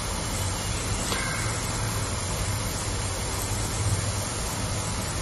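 A panful of freshly dropped rice-and-semolina snack pieces deep-frying in hot oil: the steady hiss and sizzle of bubbling oil.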